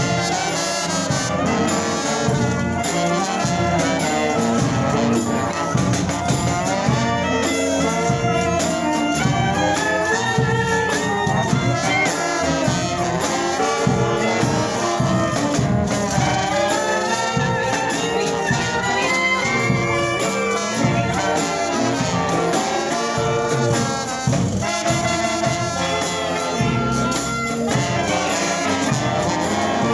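Brass band playing live: horns carry the tune over a steady beat.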